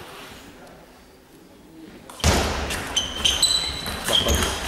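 Table tennis doubles rally: the ball clicking sharply back and forth off bats and table, several hits a second, starting about two seconds in after a quiet opening.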